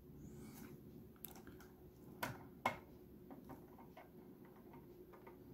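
Light clicks and taps of hard plastic figure parts being handled and fitted onto their support rods, with two sharper clicks a little over two seconds in.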